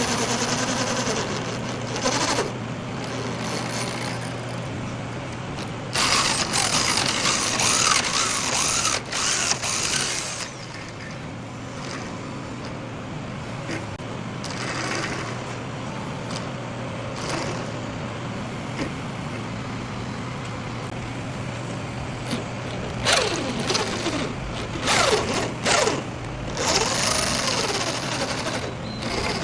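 Workshop machinery running with a steady low hum, broken twice by louder stretches of harsh noise as the thread is worked on and cleaned.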